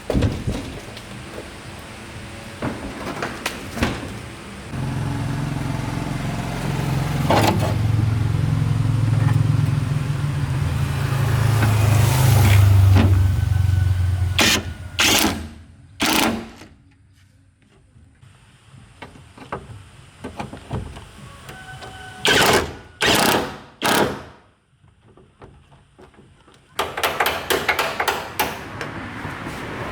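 An engine running with a steady low drone for about ten seconds, then stopping. Sharp knocks and clunks come before and after it, with three loud ones in quick succession later on.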